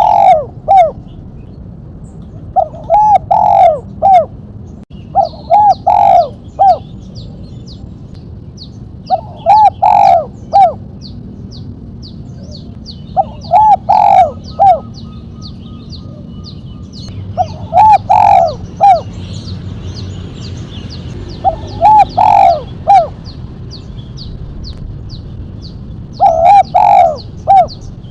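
Spotted dove (tekukur) singing its 'mercik'-style song: a phrase of a few short, sharp coos about every three to four seconds, eight phrases in all. A fast, steady run of thin high chirps goes on behind it from about five seconds in.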